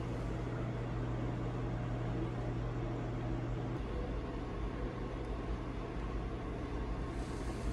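Steady low hum and rushing noise of a large car ferry's machinery and ventilation, heard inside a small passenger cabin.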